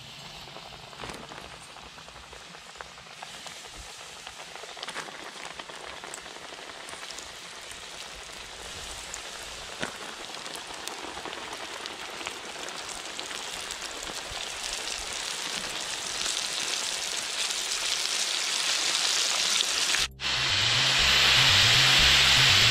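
Breaded panfish fillets frying in hot oil in a wide pan: a steady crackling sizzle with occasional sharp pops, growing louder as more pieces go into the oil. About two seconds before the end there is a sudden cut, and background music with a steady beat comes in over louder frying.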